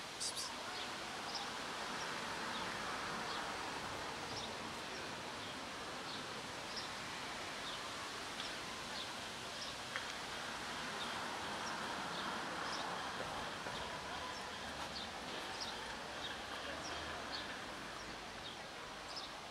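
Outdoor background ambience: a steady hiss that swells gently twice, with faint short high chirps scattered through it every second or so.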